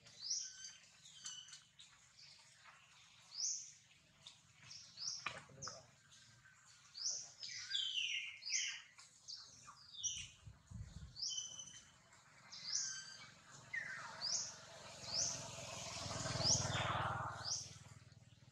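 Small birds chirping: short, high, falling chirps repeated every second or so. A rush of noise swells up about three-quarters of the way through and fades before the end.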